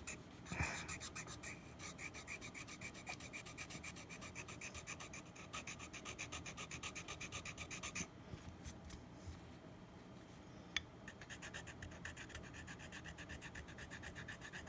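Hand file rasping back and forth over the acrylic bite-plate material of a metal mouthpiece, in quick, even strokes several times a second. The strokes stop for a few seconds about eight seconds in, with one sharp click, then resume.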